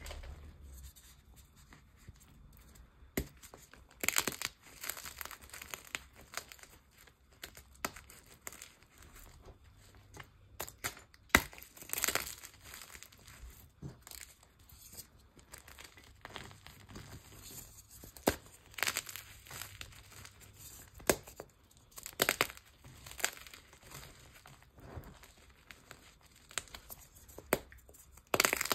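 Hands squeezing and crumbling gym chalk and cornstarch powder: irregular soft crunches and crackles with quieter rustling between, a few sharper crunches standing out.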